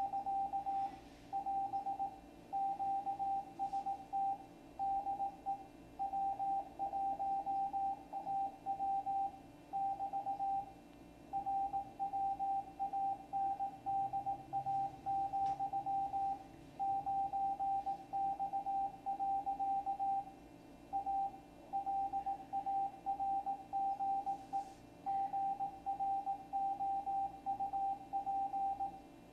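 Morse code (CW) from a shortwave receiver: a single steady-pitched tone keyed on and off in dots and dashes, sending the W1AW amateur radio bulletin that is being decoded to text live, over faint receiver hiss.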